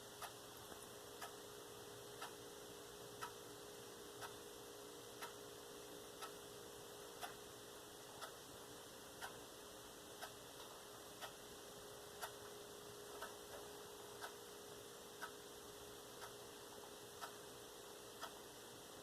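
Faint mechanical clock ticking steadily, about two ticks a second in an alternating tick-tock, over a faint steady hum.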